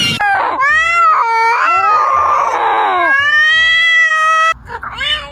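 A cat meowing and yowling loudly in several long, wailing calls that bend up and down in pitch, with a rougher, raspier stretch midway. The calls cut off suddenly about four and a half seconds in, followed by a fainter short meow near the end.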